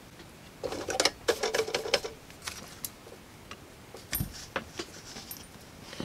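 Hand tools and a soldering iron being handled on a workbench. There is a burst of rattling and clicking for about a second and a half, then scattered clicks and a dull thump about four seconds in.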